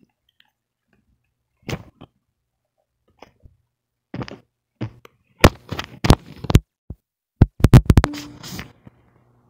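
Cardboard product boxes tapped, knocked and handled by hand: a series of sharp taps and knocks, sparse at first, then louder and closer together, with a quick run of taps near the end.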